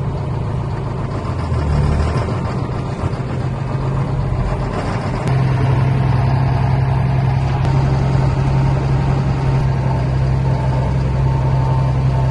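John Deere cab tractor's diesel engine running steadily, heard from inside the cab; it gets louder about five seconds in.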